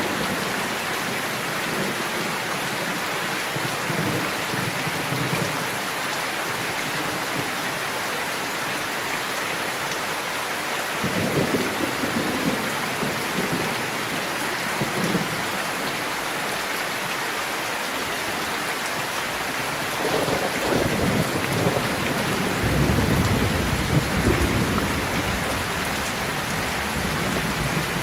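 Steady heavy rain pattering, with rolls of thunder rumbling low about a third of the way in and again, longer and louder, in the last third.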